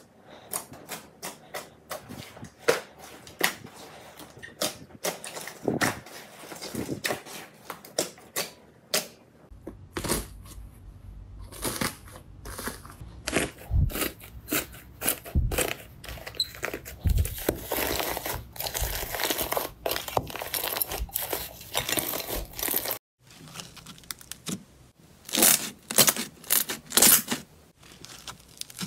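Hands poking and pressing slime, giving a run of sharp, sticky clicks and pops. About ten seconds in, this gives way to denser crackling as a slime with a dried, cracked crust is crushed. After a brief break come softer squishing and a few loud clicks.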